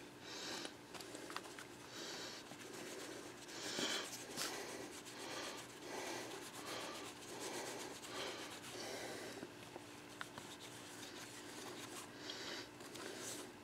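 Soft rubbing and swishing as a cleaning cloth is wiped over a compact camera body in repeated strokes, with a few small handling clicks.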